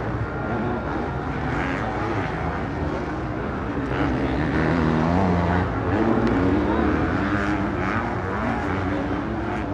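250cc motocross bikes racing, their engines revving up and down through the gears, a little louder in the middle.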